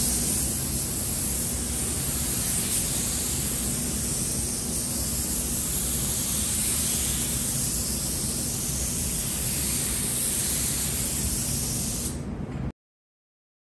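Compressed air hissing steadily through a gravity-feed paint spray gun as paint is sprayed onto a truck tailgate, over a steady low hum. The hiss cuts off abruptly near the end.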